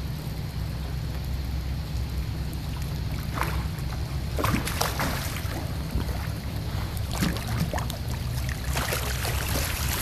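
Water splashing in several short bursts as a hooked steelhead trout thrashes at the surface and is scooped into a landing net near the end. Wind rumbles on the microphone throughout.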